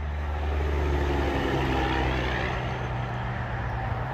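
Semi truck's diesel engine droning as it drives past on the highway. The drone swells to its loudest a second or two in, then eases off, falling slightly in pitch as the truck goes by.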